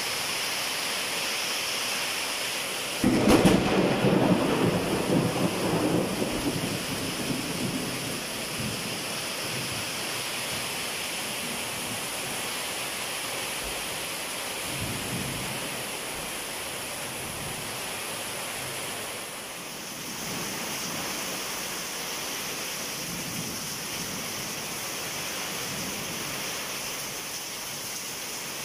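Heavy rain pouring steadily onto a concrete street, with runoff streaming off a roof edge. About three seconds in, a sudden loud clap of thunder rumbles away over several seconds, and a fainter rumble comes around the middle.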